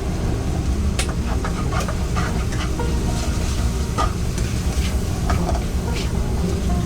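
Food sizzling in a pan while a utensil stirs and scrapes it, with scattered sharp metal clinks, over a steady low rumble.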